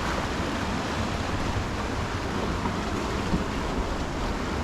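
Steady noise of ocean surf washing against the rocks.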